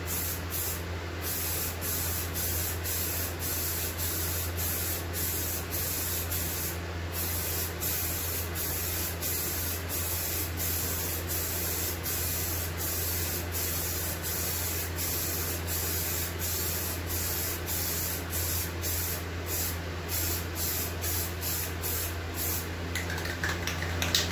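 Rust-Oleum Peel Coat aerosol spray can hissing as it lays a wet coat onto a plastic ATV tank cover. The spray runs almost continuously, with many brief breaks between passes.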